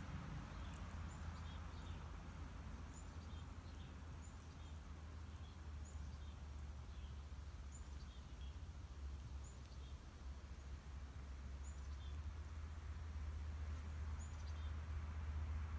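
Faint outdoor ambience: a steady low rumble, with a small bird giving short high chirps about once a second.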